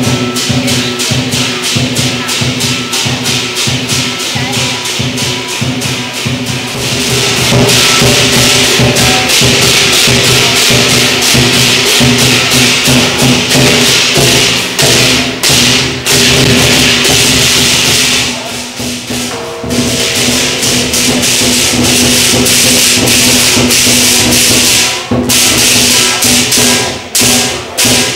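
Lion dance percussion: a large Chinese drum beaten in fast, driving rolls under crashing cymbals. It eases off briefly about two-thirds of the way through, then picks up again.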